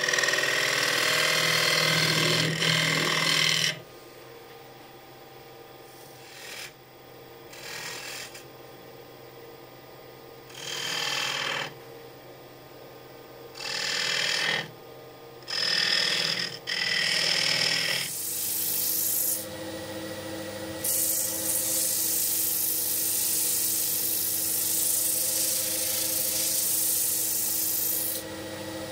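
Turning tool cutting a spinning wooden stool seat on a lathe: a loud scraping cut at first, then several short cuts. From about two-thirds in, sandpaper is held against the spinning wood, making a steady hiss over the hum of the running machine.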